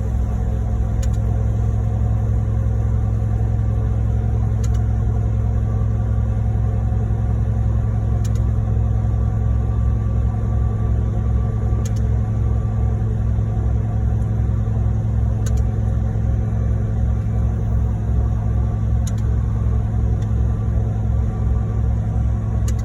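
Heavy diesel truck engines running steadily with a low rumble. A faint tick recurs about every three and a half seconds.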